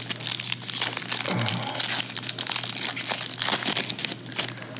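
Foil wrapper of a Panini NBA Hoops trading-card pack crinkling and tearing as it is ripped open by hand: a dense run of sharp crackles that thins out and quietens near the end.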